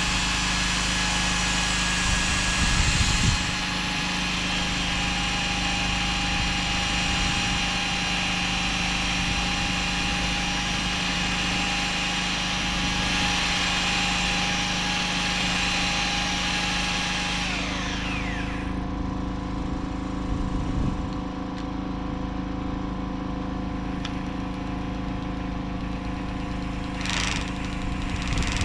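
A power tool motor, most likely an electric drill, runs steadily at high speed and then spins down about 18 seconds in. A lower, steady engine-like hum continues underneath the whole time, with a single knock near the end.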